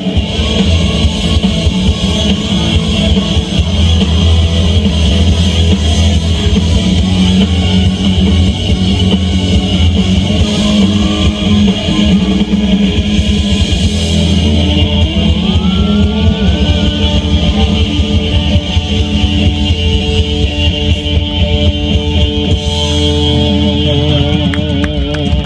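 Live pop-rock band playing a song through a loud PA, with drum kit and electric guitar, heard from the audience.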